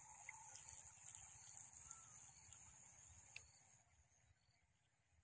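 Faint high-pitched whine of a small electric remote-control speedboat's motor running, cutting out about four seconds in. A few faint bird calls sound behind it.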